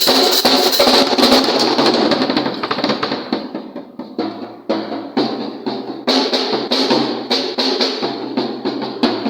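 Pearl drum kit played: busy snare rolls and hits under a wash of cymbals that thin out about three seconds in, then pick up again with sharp drum strikes and cymbal crashes.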